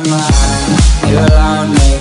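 Electronic dance music with a steady kick drum, about two beats a second, under a synth melody.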